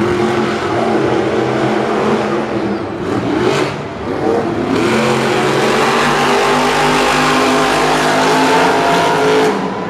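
Monster truck supercharged V8 engines revving hard, the pitch sliding up and down with the throttle. The sound grows louder and fuller about five seconds in, then drops off abruptly near the end.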